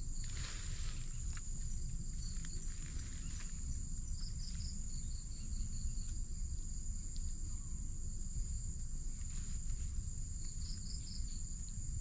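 Crickets trilling steadily in a high pitch at dusk, with two short bursts of chirps about four and eleven seconds in. Under it a steady low rumble, and now and then a brief rustle in the vegetation.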